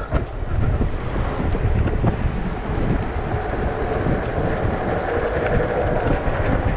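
Wind buffeting the bike-mounted camera microphone, mixed with the rumble of mountain bike tyres rolling fast on a tarmac lane; a steady noise throughout.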